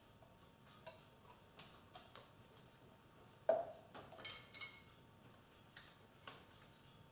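Small metallic clicks and taps from a cam chain being fished up through a Kawasaki KZ650 cylinder head on a hooked copper wire, with a sharper knock about three and a half seconds in and a quick cluster of clicks just after.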